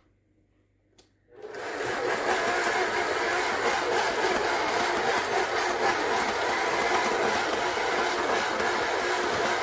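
Electric stand mixer switching on after about a second of near silence and running steadily, its flat beater churning thick cookie dough in a stainless steel bowl.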